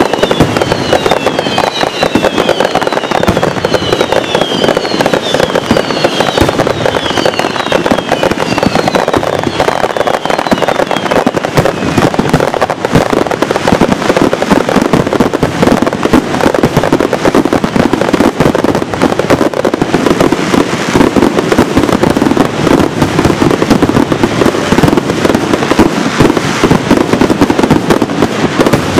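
Fireworks going off in a dense, continuous barrage of crackling and popping, with many short falling whistles over the first dozen seconds.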